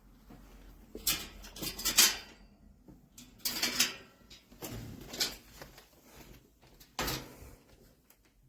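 Heavy-duty metal dog crate clanking and rattling in four separate bursts, with short quiet gaps between them.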